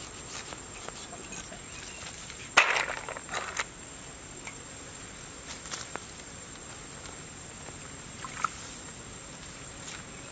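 Hands-on preparation of raw salmon: a brief clatter of several knocks and crunches about two and a half seconds in, then a few light taps and handling noises. A faint steady high insect whine runs underneath.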